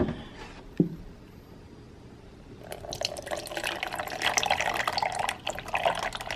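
Milk poured from a plastic jug into a plastic shaker bottle, starting about two and a half seconds in and running steadily until the end. Two light knocks come just before, in the first second.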